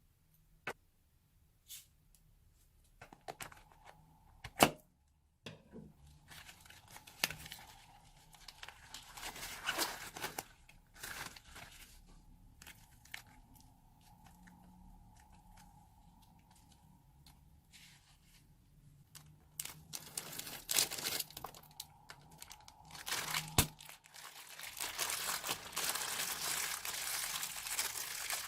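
Slime being stretched, squeezed and folded by hand, making sticky crackling and popping. There are a few sharp clicks in the first seconds, and a long spell of dense crackling near the end.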